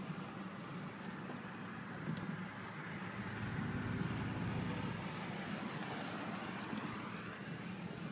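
A car running and driving, its low engine and road noise heard from inside the cabin, swelling a little in the middle.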